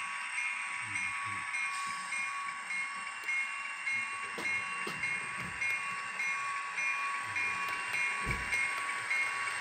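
O gauge model freight train running on layout track, its wheels giving a steady rumble with occasional clicks, over a steady whine and a bell ringing about twice a second.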